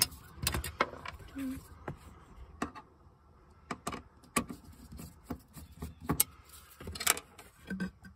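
Scattered sharp clicks and small metallic clinks of a Phillips screwdriver working screws out of a metal fuel pump access panel, with a short quiet pause about three seconds in.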